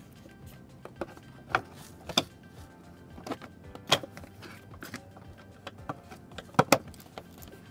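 Quiet background music with a scattered series of about seven sharp clicks and knocks, the loudest two close together near the end.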